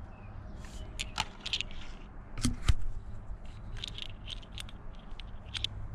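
Scattered light clicks, taps and scrapes of a small motorcycle GPS mount part being handled, with one louder knock about two and a half seconds in.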